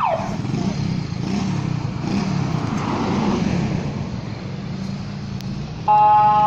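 Motorcycle engine running with a low, uneven rumble, and a car passing about three seconds in. Near the end a loud horn cuts in with one steady tone.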